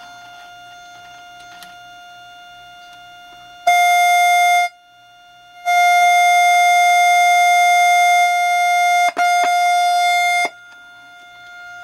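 Steady test tone from a Heathkit T3 signal tracer's speaker. It is faint while probing the first tube's grid cap, then jumps loud a few seconds in as the probe reaches the plate pin. It cuts out for about a second, sounds loud again for several seconds with a brief dropout, and falls back to faint near the end. The much louder tone at the plate shows the tube amplifying properly.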